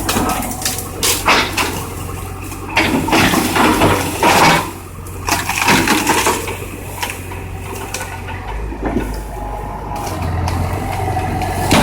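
Excavator tearing down a fire-damaged house: timber cracking and debris crunching and crashing in irregular bursts, the loudest about three and four seconds in, over the machine's engine running steadily.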